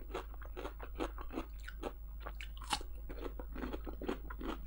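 Close-up crunching and chewing of a bite of fresh cucumber: a steady run of irregular crisp crunches, one a little louder a bit under three seconds in.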